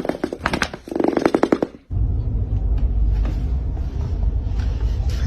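A dog's drawn-out, pulsing grumbling whine, twice, cut off suddenly about two seconds in. A steady low rumble follows.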